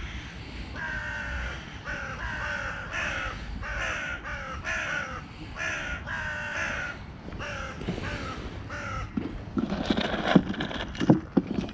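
Crow cawing repeatedly, about a dozen harsh caws in a steady series. Near the end come a few sharp knocks and some clatter.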